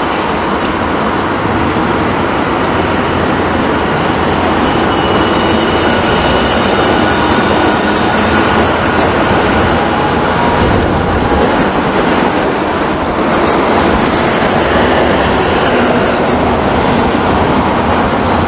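Street trams rolling along track set in the road, among road traffic; the old Hiroden 1900-series car (ex-Kyoto city tram) is coming closer. A steady, fairly loud noise.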